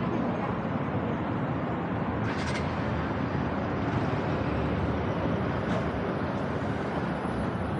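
Steady city street traffic noise from passing cars and buses, with a brief hiss about two seconds in.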